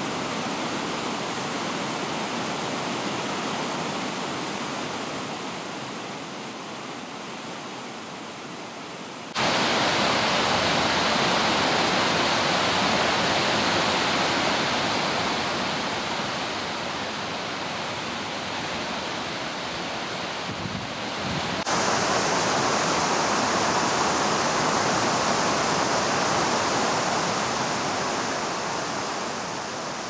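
Water spilling over a low dam and rushing through the rocky river below: a steady rush of white water. It jumps suddenly louder twice, about a third and about two thirds of the way through.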